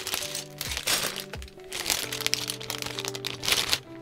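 Clear plastic bags full of small plastic bricks crinkling and rustling as they are handled and swapped, over background music with sustained notes.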